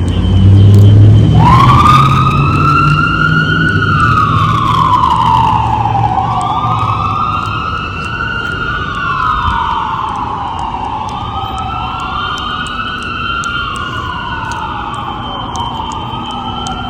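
Fire engine siren winding up about a second in and then wailing, its pitch sweeping slowly up and down about every four to five seconds, over a low engine rumble that is loudest at the start.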